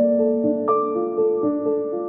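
Calm background music of soft piano notes, a new note struck every half second or so and left to ring.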